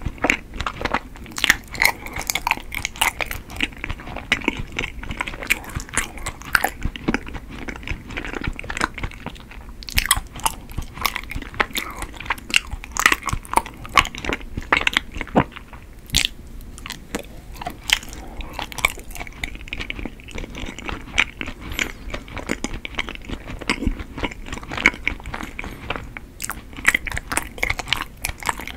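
Close-miked eating of chewy Korean rice cake (tteok): a steady run of biting and chewing with many quick, irregular mouth clicks.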